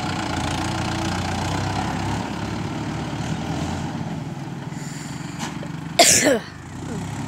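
Mahindra Yuvo 575 tractor's four-cylinder diesel engine running as the tractor drives away, its sound slowly fading. About six seconds in, a short loud high call slides steeply down in pitch.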